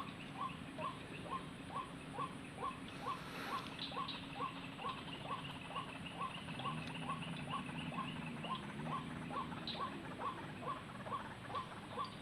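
White-breasted waterhen (ruak-ruak) calling in a rapid, even series of short falling notes, about four a second, without a break.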